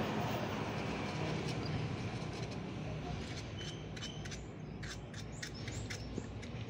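Small birds chirping over a steady low background rumble, with a few light clicks from about halfway in.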